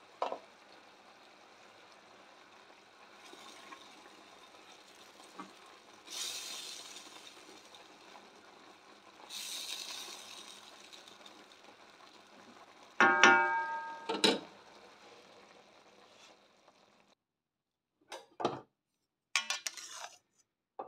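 Mushroom sauce simmering and bubbling in a stainless steel pan, with two louder hissing surges as it boils and is stirred. About two-thirds of the way through, a few sharp ringing clinks of a utensil against the pan, and near the end a few short clicks and knocks.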